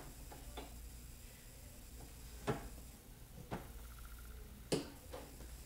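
Sparse light metallic clicks and taps, about half a dozen at uneven intervals, as a die lock nut is hand-tightened on a single-stage reloading press; the sharpest click comes near the end.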